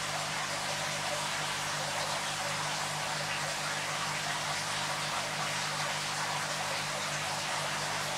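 Aquarium equipment running: a steady, even hiss of moving water with a low constant hum underneath.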